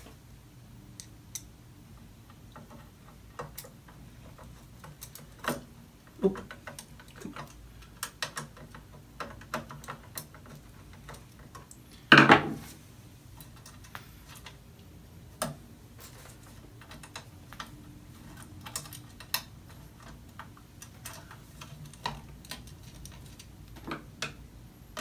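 Small irregular clicks and taps of metal parts and tools being handled as a screw is worked into a monitor mount, with one louder knock about twelve seconds in.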